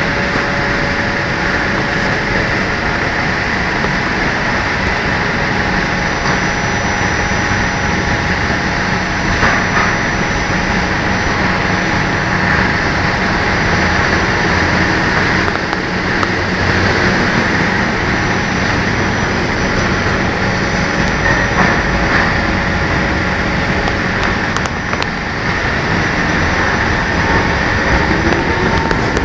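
Kawasaki C151 metro train standing at the platform, its onboard equipment giving a steady hum with a few faint held tones, then starting to pull away near the end.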